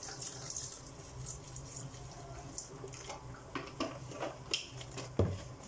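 White wine poured from a carton into a Thermomix's steel mixing bowl, then a few light clicks of handling and a single louder knock near the end.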